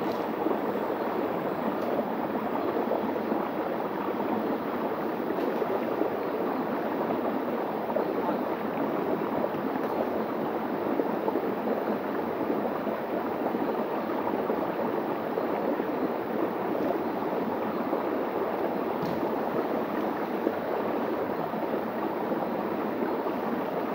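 Shallow stream running over a flat rock bed in a steady rush.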